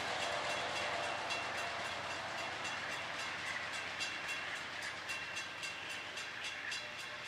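Double-stack container well cars of a freight train rolling past at speed: a steady rush of wheels on rail with rapid, regular clicking over the rail joints.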